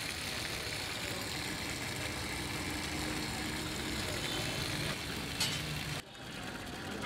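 Water running from a tap onto shredded carrots in a steel bowl, a steady rushing with a low rumble underneath. A sharp click comes about five and a half seconds in, and the sound cuts off about six seconds in.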